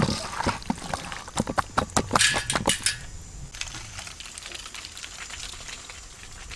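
Hands squelching and kneading squid and octopus pieces in a wet chili marinade in a metal bowl. A fast run of wet slaps and clicks lasts about three seconds, then the handling goes quieter with a few faint clicks.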